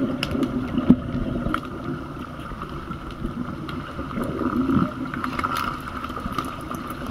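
Pool water heard underwater as a continuous muffled rumble, with scattered sharp clicks and knocks from the underwater hockey sticks and puck on the pool floor, over a steady hum.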